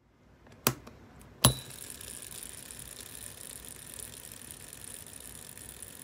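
Tuned Abu Garcia Ambassadeur 2500C baitcasting reel: two sharp clicks as the free-spool is engaged and the spool is set going, the second the louder, then the spool spinning freely with a steady faint whir on SiC bearings, brakes removed and oil cut to a minimum for the least friction.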